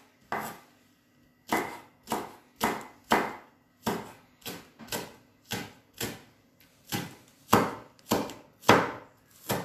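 Chef's knife slicing spring onions on a wooden cutting board. There are about fifteen separate cuts, roughly two a second, each ending in a sharp knock of the blade on the board.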